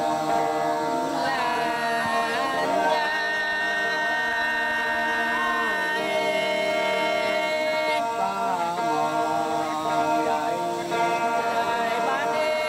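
Traditional Kenyah-Kayan chant sung in long held notes that slide slowly from one pitch to the next.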